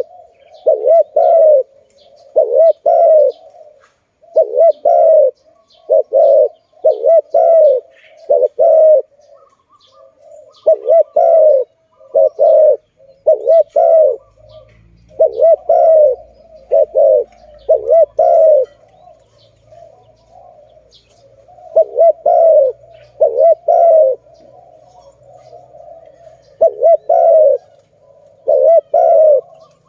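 Spotted dove (tekukur) cooing over and over in short phrases of two or three notes, about one phrase every one to two seconds, with faint chirps of small birds in the background.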